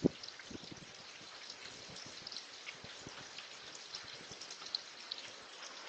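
Rain from a hurricane rain band falling steadily, with scattered louder drop taps among it and one sharp tap right at the start.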